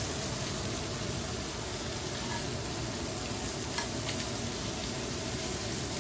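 Head-on shrimp sizzling steadily in oil on a stovetop griddle pan, with a couple of light clicks from metal tongs against the pan about four seconds in as the shrimp are turned.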